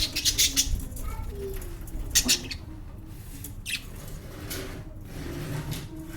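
Pet lovebirds giving short, shrill chirping calls in separate bursts, about four or five over a few seconds, with a low background hum beneath.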